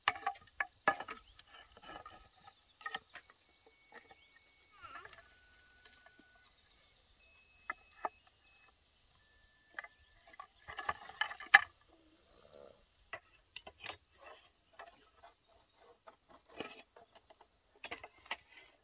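Bamboo being cut and handled with a large knife: irregular sharp taps, chops and the clatter of split bamboo strips knocking together, with the loudest burst of knocks just past halfway. A steady high insect drone runs underneath.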